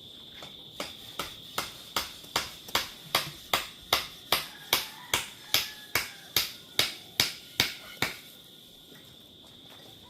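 About twenty sharp taps or clicks at a steady pace of roughly two and a half a second, growing louder and then stopping about eight seconds in, over a steady high-pitched whine.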